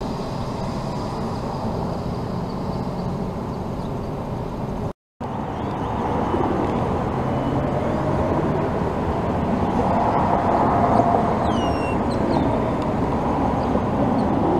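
Steady outdoor rumble of road traffic, briefly cut off just before five seconds in. A few short, high, falling chirps come about eleven seconds in.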